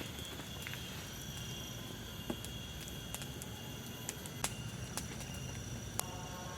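Forest ambience: insects trill steadily at a high pitch, with a few sharp, irregular clicks and a low rumble underneath.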